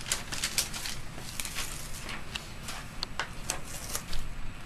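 Irregular crinkling and crackling of a transparent adhesive film dressing (Tegaderm) and its backing as gloved hands handle it and lay it on the skin.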